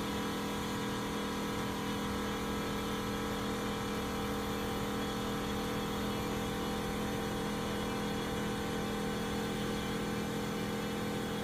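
Kleinn JK-OBA on-board air compressor running steadily with an even, unchanging drone as it refills a Jeep tire from 10 to 35 psi.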